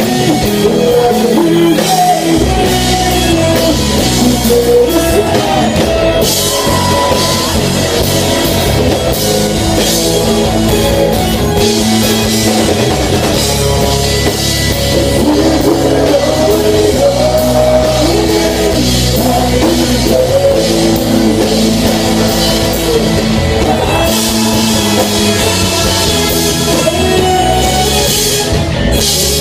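Live rock band playing: electric guitars, bass guitar and drum kit, with a singer's voice at times over the band.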